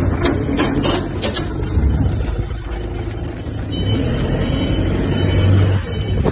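Steady low rumble of a running vehicle engine, with a few sharp crackles in the first second or so.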